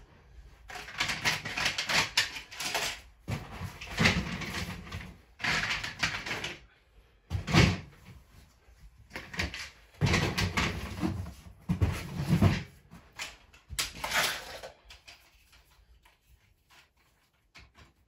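Repeated bursts of rustling and clattering as packaging and plastic Playmobil train parts are handled. For the last few seconds it is quieter, with a few faint clicks as pieces are set on the track.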